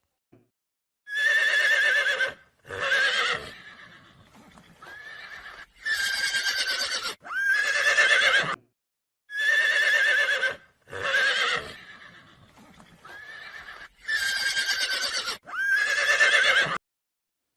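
Horse whinnying: several neighs with a quavering pitch, the same run of calls heard twice over.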